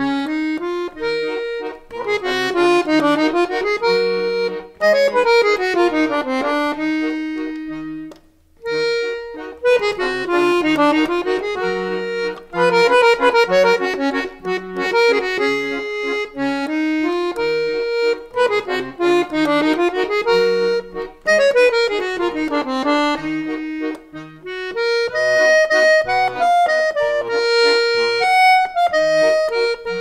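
Accordion music: a melody with rising and falling runs over short repeated bass notes, with a brief break about eight seconds in.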